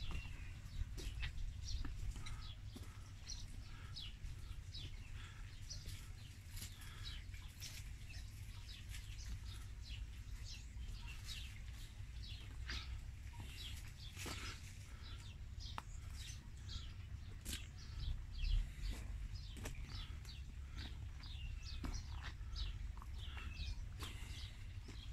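Small birds chirping and calling, many short, quick calls overlapping throughout, over a steady low rumble.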